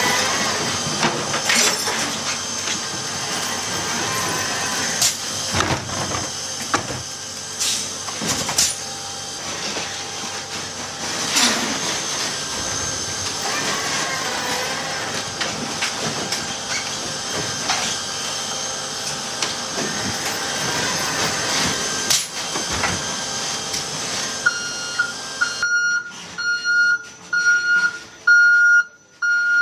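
Electric Heil side-loader garbage truck's automated arm lifting and dumping a recycling cart, its hydraulics giving a steady high whine and hiss, with scattered clanks and knocks as the cart is shaken and the recyclables drop into the hopper. Near the end the truck's warning beeper starts, about one beep a second.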